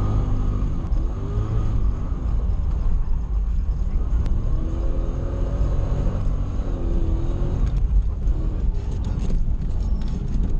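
Toyota 1UZ-FE V8 in a Nissan 240SX heard from inside the cabin, running steadily with revs wavering slightly as the car drives. A few light ticks come near the end.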